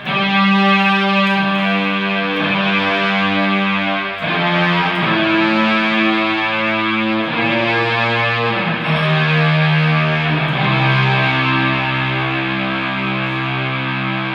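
Electric guitar played through a Boss guitar synthesizer, giving synthesizer-like sustained notes. It comes in abruptly and moves through a slow line of long held notes, each one to two seconds long, settling onto lower notes about eleven seconds in.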